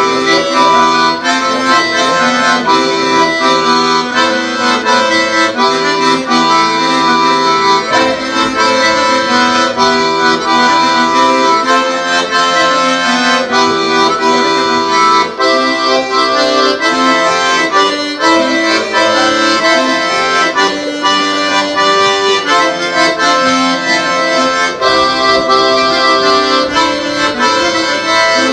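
Instrumental traditional Breton dance music, a tune of held and changing notes playing continuously for the dancers.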